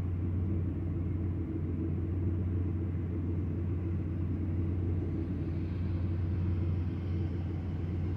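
Steady low hum of a parked vehicle's engine idling, heard from inside the cabin.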